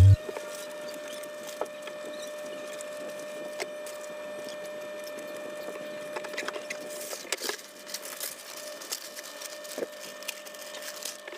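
A sheet of self-adhesive wallpaper rustling and crackling as it is handled and pressed on, with scattered light clicks and a cluster of louder crackles about seven seconds in. A faint steady hum runs beneath.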